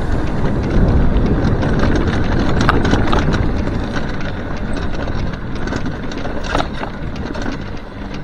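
Mountain bike riding a dirt and gravel track: wind rumbling on the microphone and tyres crunching over the surface, with small rattles and clicks from the bike. It eases off toward the end as the bike slows.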